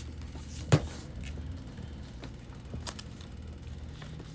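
Hardcover books being handled: one sharp thump about three-quarters of a second in, then a few faint clicks and rustles as a book's cover is opened.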